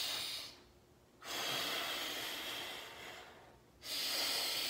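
Slow, deep yoga breathing through the nose, in and out: a breath trails off just after the start, a long breath of about two seconds follows, and another begins near the end, with short silent pauses between them.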